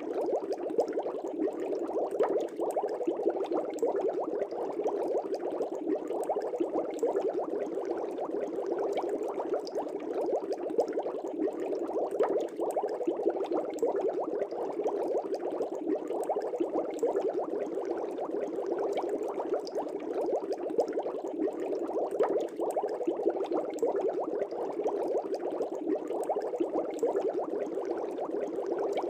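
Aquarium air bubbles rising and breaking at the water surface: a steady, dense bubbling with many small pops.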